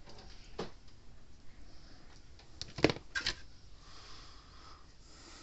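A few sharp clicks and knocks of small parts or tools being handled on a workbench: a light one about half a second in, then two louder ones close together about three seconds in.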